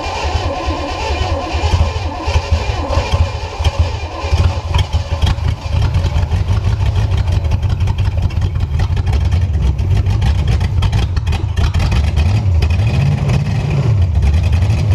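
Small-block Chevy 350 V8 inboard boat engine running after decades of sitting, uneven for the first few seconds and then settling into a steady run. It is revved up and back down a couple of times near the end.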